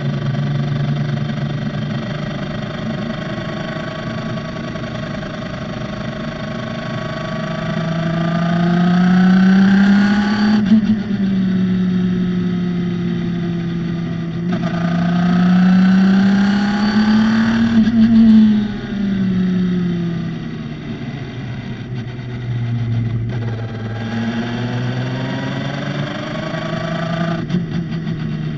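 Radical SR3's motorcycle-derived four-cylinder engine under hard acceleration on track, its pitch climbing steadily for several seconds and then falling suddenly as the driver lifts or shifts. This happens twice, after which the engine runs lower and builds again.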